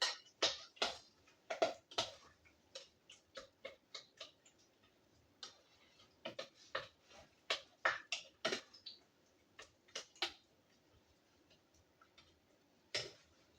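Irregular sharp clicks and knocks, several a second at times, of kitchenware being handled while cooking.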